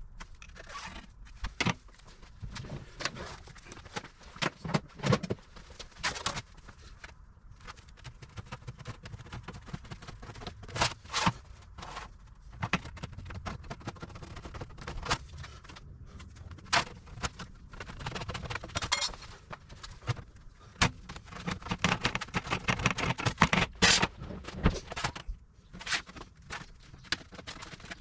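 Workshop metalwork sounds: irregular metallic clinks, knocks and scrapes of tools and sheet steel being handled and worked, with a few longer stretches of rasping.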